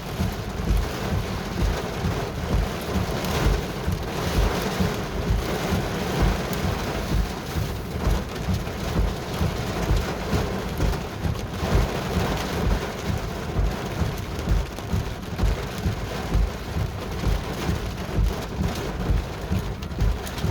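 Steady rain in a thunderstorm, with a low rumble that swells and dips irregularly underneath.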